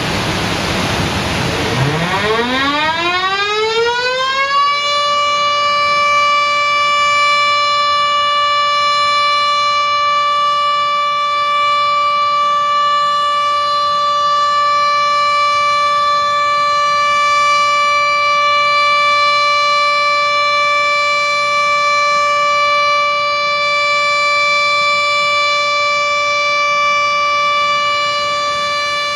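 Dam-discharge warning siren winding up from a low pitch to a high one over about three seconds, then holding one steady tone: the warning of an emergency water release from a dam.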